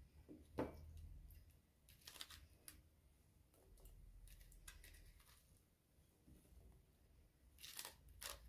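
Faint taps and soft clicks as diced eggplant pieces are picked out of a plastic colander and dropped into a stainless steel pan, with a sharper tap about half a second in and a few quick clicks near the end.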